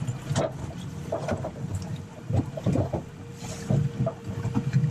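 Electric deep-drop reel winding in slowly on a hooked fish, a faint steady whine that stops near the end. Over it, wind gusts on the microphone and water slaps against the boat, with scattered small knocks.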